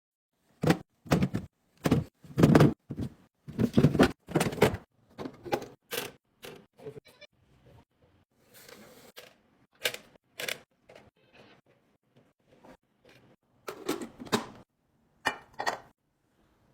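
Containers and food items being set down and placed in a fridge during restocking: a run of sharp knocks and thunks, close together in the first five seconds, then sparser, with a few more clusters later on.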